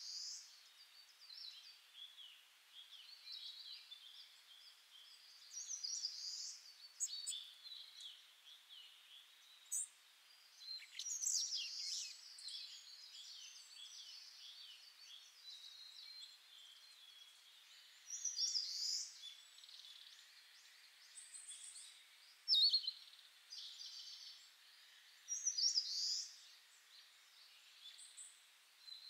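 Small birds chirping and twittering in high, short phrases that come and go every few seconds, with a few light sharp clicks, one louder about two-thirds of the way through.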